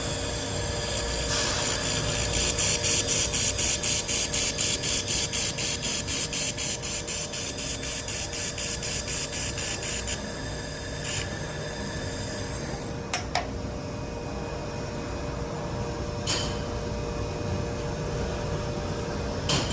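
IPG LightWELD handheld fiber laser welder in pulse mode laying a weld bead with wire feed. It makes a high-pitched hissing sizzle that pulses evenly about five times a second for roughly nine seconds, then stops. A plainer hiss carries on for a couple of seconds, followed by a few sharp clicks.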